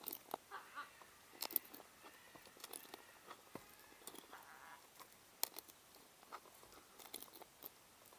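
Scarlet macaws cracking and chewing food at a feeder: irregular sharp cracks and clicks, with faint bird calls in between.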